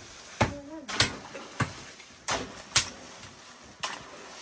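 A series of about six sharp knocks of hard objects striking, unevenly spaced, with a short voice sound just after the first knock.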